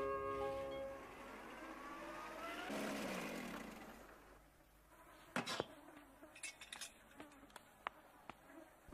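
Cartoon car sound effects: a buzzing engine that rises in pitch as the car drives up and dies away about four seconds in, then a scatter of sharp clicks and knocks as the car door is opened.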